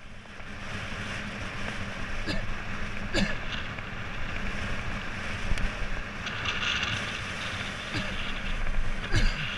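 Motorcycle running at cruising speed on an open road, its engine a low steady rumble under heavy wind rush on the microphone. A few short falling sweeps cut through.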